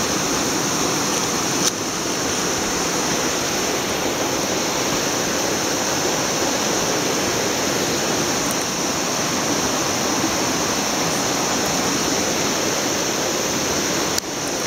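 River water rushing steadily over a shallow, stony bed, a loud even rush with no let-up.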